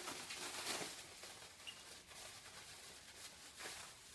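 Packaging rustling and crinkling as parts are handled out of a box, with a few soft knocks.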